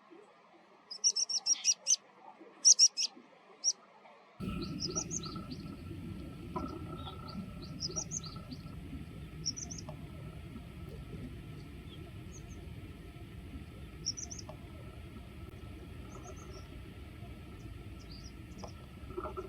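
Pipit calls: a quick run of short, sharp, high call notes in the first few seconds, the loudest part. About four seconds in a steady low rushing background comes in suddenly, with thinner single chirps scattered over it.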